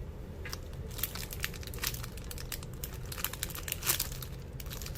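Crinkly plastic packaging being handled around a squishy toy: a run of sharp, irregular crackles starting about a second in.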